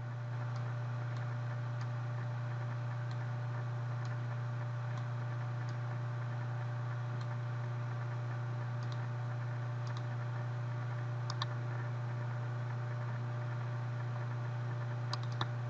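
Faint, scattered computer mouse clicks, including a quick double click about eleven seconds in and another near the end, over a steady low electrical hum.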